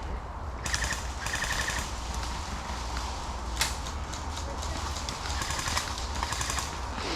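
Airsoft guns firing in automatic bursts: rapid, evenly spaced clatter in several strings, the clearest about a second in, with one sharp single crack near the middle.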